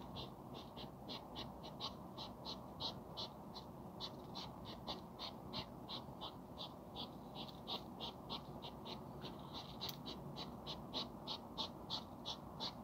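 Hedgehog courtship snorting: short, rapid huffing puffs, about four a second, kept up steadily as part of the hedgehogs' mating ritual.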